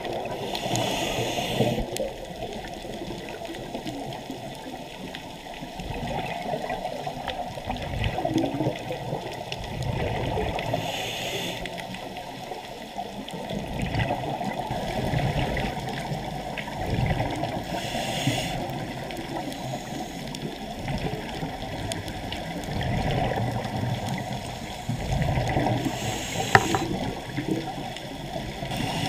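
Scuba regulator breathing heard underwater: four gurgling bursts of exhaled bubbles several seconds apart, over a steady muffled churning of water.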